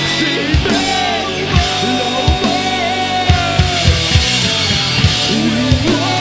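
A punk rock band playing live: electric guitars, bass and a drum kit, with repeated kick-drum hits under a loud, dense wall of guitar.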